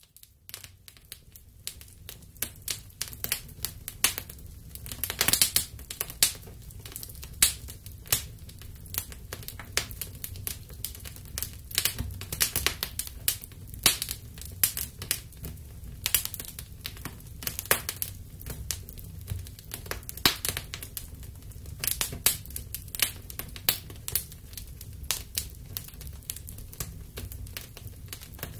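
Wood fire crackling in a fireplace: irregular sharp pops and snaps, several a second, over a steady low rumble of the flames, with a quick flurry of pops about five seconds in.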